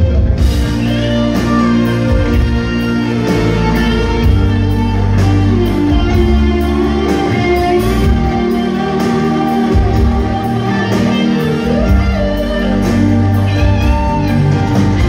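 A live rock band playing: electro-acoustic and electric guitars, keyboards, bass and drums.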